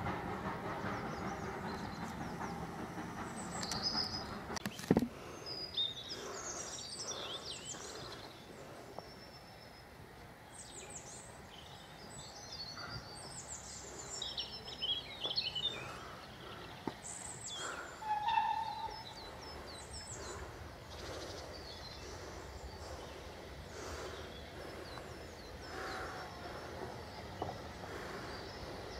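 Small birds chirping and twittering repeatedly over a low, steady background rumble, with a single sharp knock about five seconds in.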